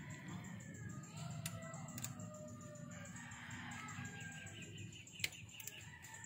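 Faint background music with bird calls, and a few sharp clicks, the loudest about five seconds in.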